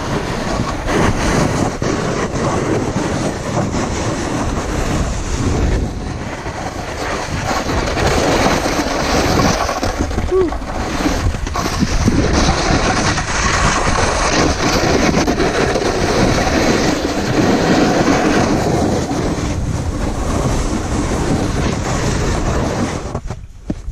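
Snowboard sliding and scraping over firm, tracked-out snow during a run: a loud, continuous rough noise that drops away just before the end as the board slows.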